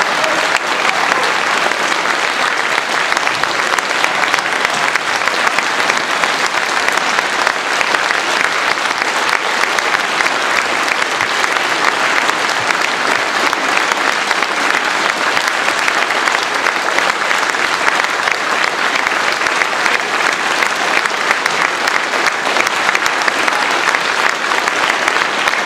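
Audience applause: many people clapping steadily, without a break.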